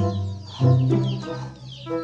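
Music: a melody of short pitched notes that change every fraction of a second.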